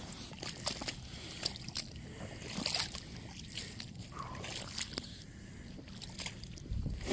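Shallow river water sloshing and lightly splashing at a slushy, icy edge, with scattered sharp clicks.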